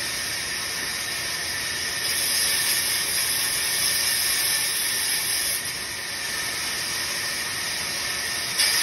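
Vertical band saw running with its blade cutting through a wooden cricket bat blank, a steady hissing noise.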